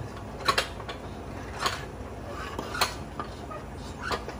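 Sharp metal clinks and knocks, about five of them at irregular intervals, as a heavy steel flywheel with a ring gear is shifted and steadied by hand. The loudest is a quick double clink about half a second in.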